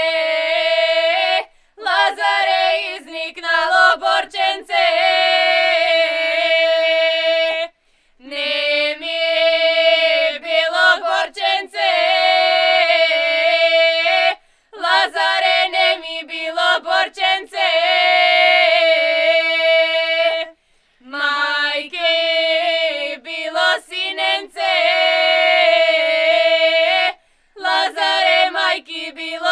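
A group of young women singing a Macedonian lazarki (Lazarus Saturday) ritual song unaccompanied, in long sung phrases of about six seconds with short breaks for breath between them.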